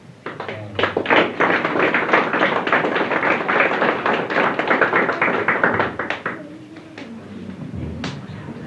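Audience applauding: a dense patter of hand-claps that dies away about six seconds in.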